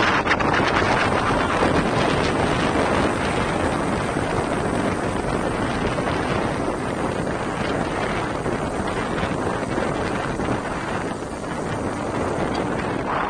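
Wind buffeting a bicycle-mounted camera's microphone at road-cycling speed, around 40 km/h: a steady rushing noise, a little stronger in the first few seconds.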